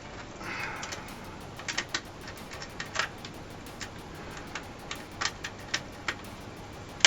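Scattered light clicks and taps with a short scratchy rustle about half a second in: a small screwdriver working a screw out of a laptop's plastic casing.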